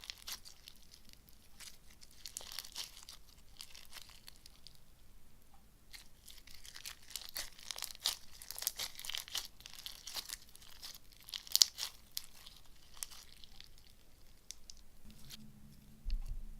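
Crunchy bead slime coated in gold leaf being squeezed and pressed by hand, making dense crackling and popping in bursts.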